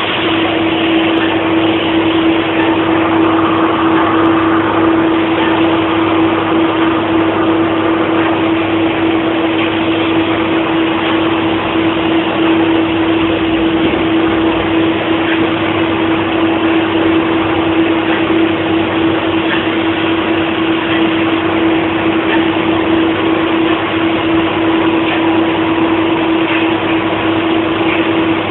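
Milltronics RW15 CNC milling machine running and cutting: a steady spindle whine over a continuous hiss of machining noise.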